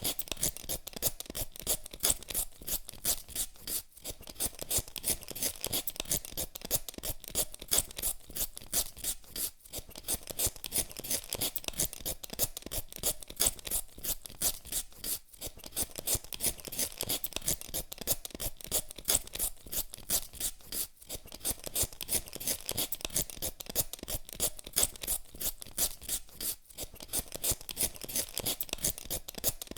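Raw potato being peeled with a hand vegetable peeler: quick scraping strokes of the blade across the skin, several a second, with a brief pause every five or six seconds.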